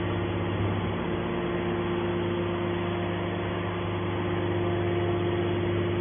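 Hydraulic power unit of a TCM scrap-metal baler running, a steady motor-and-pump hum, while a hydraulic cylinder swings the baler's press lid open.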